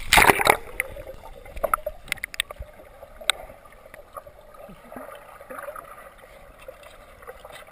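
A dog splashes into a swimming pool right at the start. The sound then turns muffled, as heard from a camera under the water, with a few sharp clicks in the next few seconds and a low watery gurgle as the dog swims and dives.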